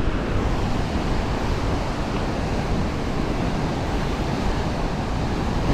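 Steady rush of a swift river current churning along a concrete wall, with wind rumbling on the microphone.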